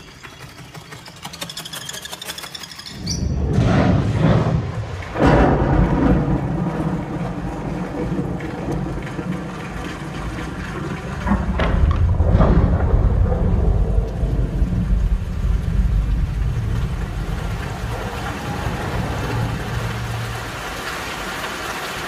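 Thunderstorm sound effects from a Dolby Atmos cinema promo, played through the theatre speakers and picked up by a phone microphone. Faint jungle chirps give way about three seconds in to deep, loud thunder with several sharp claps, the strongest near four to five seconds and again around twelve seconds, over steady rain and rumbling.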